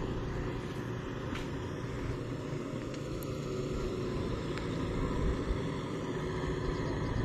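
Kubota MU5502 tractor's diesel engine running steadily at a distance while it works a flooded paddy field, heard as a low rumble.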